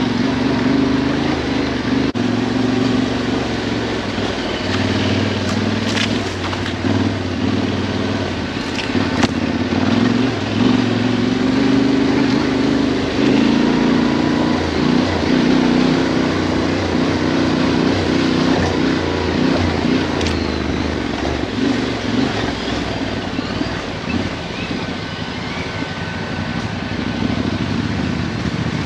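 Yamaha Ténéré 700's parallel-twin engine running at low, varying revs while the motorcycle is ridden off-road, with a couple of sharp knocks about six and nine seconds in.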